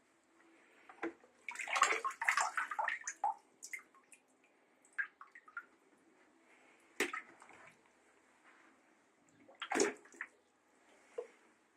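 Water splashing and sloshing around an RC boat hull in a tub, with a burst of splashes about two seconds in and two sharp single splashes later.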